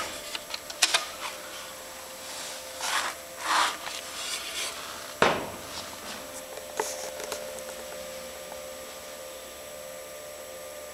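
Short, irregular rubbing and scraping noises and a sharp knock about five seconds in, over a faint steady hum.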